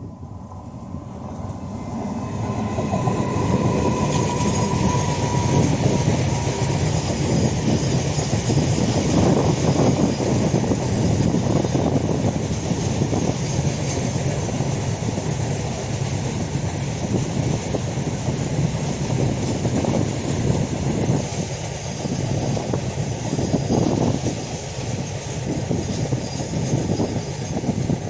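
A train running past close by, growing louder over the first few seconds and then a steady rumble with wheels clattering over the rail joints.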